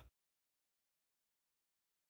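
Near silence: the track is blank after the tail of a short sound fades out right at the start.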